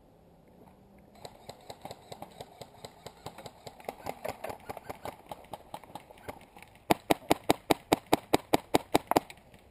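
Airsoft rifle firing a rapid string of shots, sharp evenly spaced clacks at about six a second for a couple of seconds near the end. Before that, quieter fast clicking of airsoft fire runs for several seconds.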